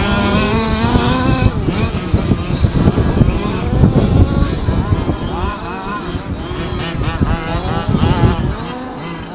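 Small two-stroke petrol engines of 1/5-scale RC cars such as the HPI Baja and Losi 5ive, buzzing and revving up and down as they race round a dirt track.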